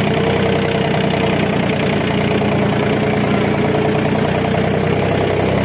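John Deere tractor's diesel engine running steadily under a light, even load, with a constant low hum and no change in speed.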